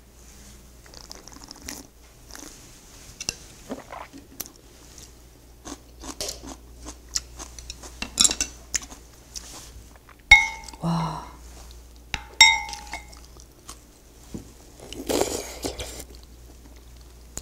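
Eating sounds: small clicks of cutlery and chewing. About ten and twelve seconds in, a metal spoon or chopsticks strike the soup pot in two sharp clinks with a brief ringing tone, and near the end comes a noisy slurp from a spoonful of soup.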